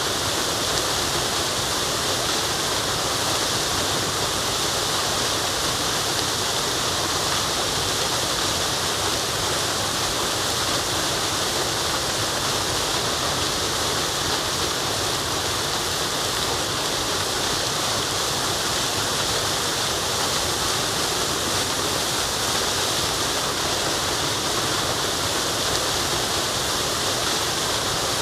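Waterfall in a forest, water rushing steadily with a full, even hiss that never changes.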